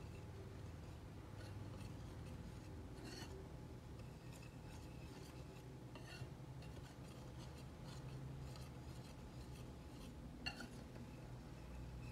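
Metal balloon whisk stirring a dry flour mixture in a glass bowl: faint rubbing and scraping, with a few sharp clinks of the wires against the glass.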